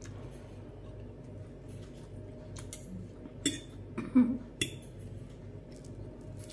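Metal fork and knife clinking against glass plates, a handful of short sharp clinks bunched around the middle, the loudest just after the halfway point, over a steady low hum.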